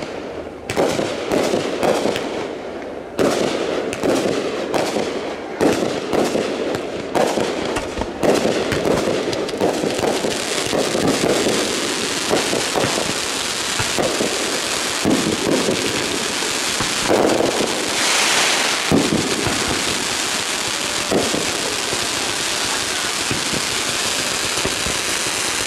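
Consumer fireworks going off in quick succession. Sharp bangs come in the first several seconds, then give way from about eight seconds in to a dense, continuous crackle with scattered bangs.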